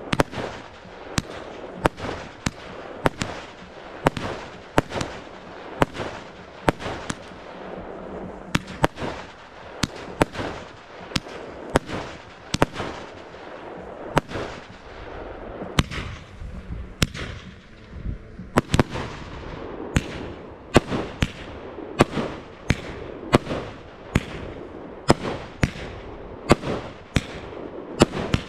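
Aerial firework shells launched and bursting in rapid succession: sharp bangs about one to two a second, keeping on throughout.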